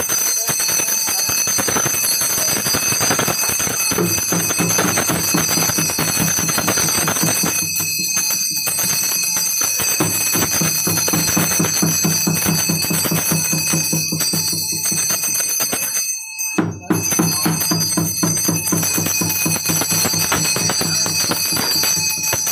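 Metal ritual bell ringing rapidly and without pause, its bright ring over a dense, fast rattle. It cuts out briefly about sixteen seconds in, then carries on.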